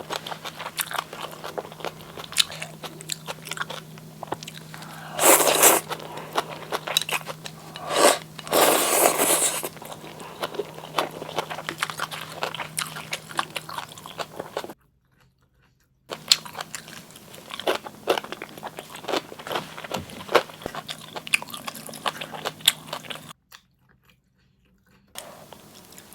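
Close-miked eating of spicy instant noodles in seaweed soup with half-boiled egg: wet chewing and mouth clicks, with a few louder breathy bursts. The sound drops out to dead silence twice.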